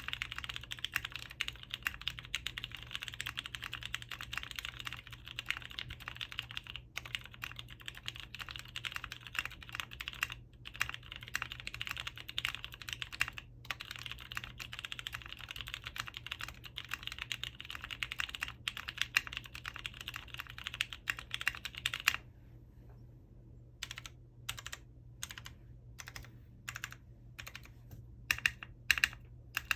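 Typing on a Matrix 8XV2.0 Additional mechanical keyboard with lubed vintage Cherry MX Brown switches on an FR4 half plate, under PBT keycaps. It is fast, continuous typing for most of the stretch; about three quarters of the way in it gives way to slower, separate keystrokes, a few of them louder near the end.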